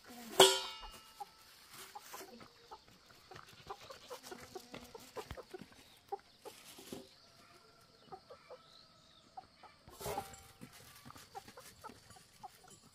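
Domestic chickens clucking, with a loud squawk about half a second in and another squawk about ten seconds in, and short clucks scattered between.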